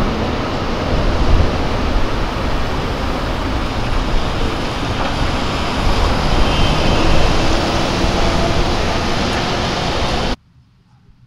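City street traffic noise: a loud, steady rush of passing cars with a low rumble, which cuts off suddenly about ten seconds in.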